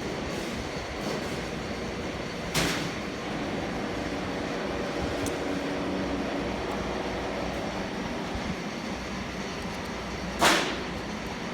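Steady machinery noise with two sharp metallic clanks about eight seconds apart, the second louder, each ringing briefly: metal compressor parts being handled during a piston and connecting rod overhaul.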